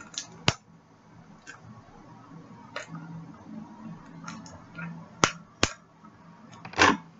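Handling and opening a small box holding a hockey puck, with its packaging: scattered sharp clicks and taps, a loud one about half a second in and two close together past five seconds, then a brief rustle near the end.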